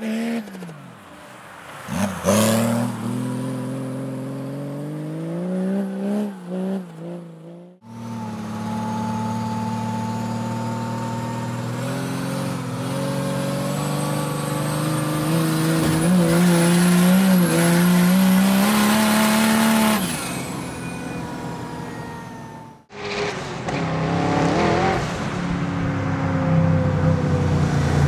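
Renault Kangoo van's swapped Mercedes OM606 inline-six turbodiesel revving up and down hard while it drifts on ice. After a sudden cut, the same engine is heard from inside the cab, held at high revs, with a thin high whistle climbing over several seconds. Near the end, a second sudden cut brings in a Gaz 24 Volga's turbocharged Ford Windsor 302 V8 revving, the loudest part of the stretch.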